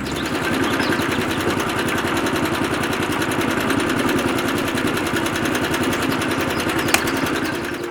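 A small motor-driven machine running steadily with a fast, even rattle, starting and stopping abruptly.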